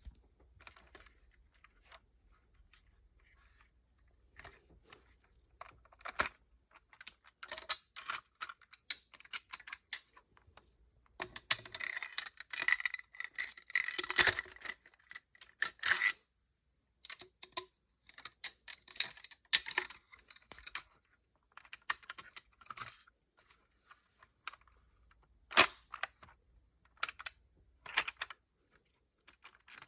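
Plastic Lego parts clicking and rattling as they are handled: scattered light clicks, a busier run of rattling about halfway through, and one sharp click late on.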